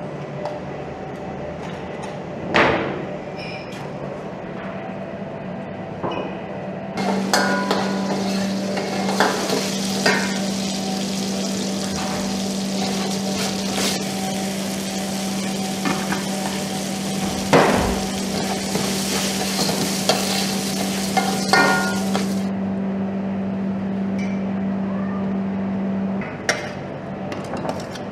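Rice-and-meat stuffing frying in a large aluminium pot, a steady sizzle through the middle stretch with a metal ladle stirring and scraping against the pot. A steady low hum runs underneath, with a few sharp knocks.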